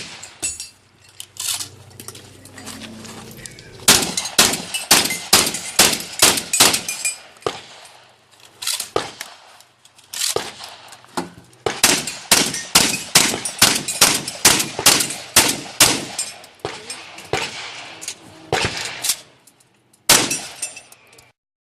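Pistol shots fired in rapid strings of several shots, with short pauses between strings as the shooter moves between targets.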